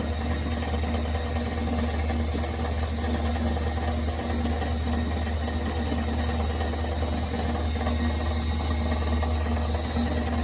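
Small wood lathe's electric motor running at a steady speed, a constant low hum, as the turned piece spins for its finish coat.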